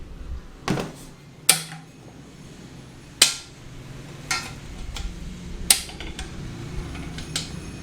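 About six sharp metallic clanks and knocks at irregular intervals, some ringing briefly, the loudest about one and a half and three seconds in.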